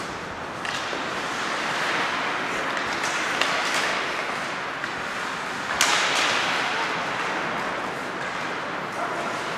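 Ice hockey play on an indoor rink: skates scraping the ice in a steady hiss, broken by a few sharp knocks of sticks and puck, the loudest about six seconds in.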